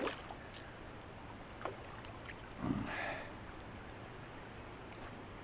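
Water sloshing and splashing softly as a hand holds and releases a rainbow trout at the surface of a creek, with one brief louder swish of water about halfway through, over a steady light hiss.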